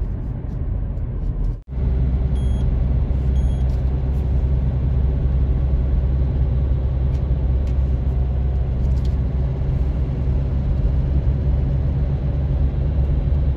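Car cabin road and engine noise while driving: a steady low rumble. It briefly drops out near the start, and two short high beeps follow about a second apart.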